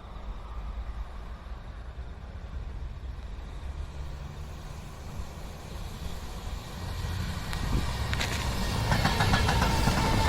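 Train approaching on the line: a low rumble that builds from about seven seconds in, with wheel-on-rail clatter starting near the end.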